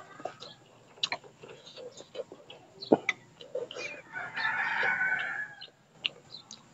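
A rooster crows once, a call lasting about a second and a half just past the middle. Around it come scattered sharp clicks of a metal spoon against a glass bowl, among the mouth sounds of eating.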